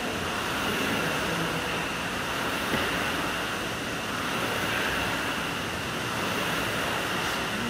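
Air-resistance rowing machine's fan flywheel whooshing steadily, swelling with each drive stroke about every two seconds.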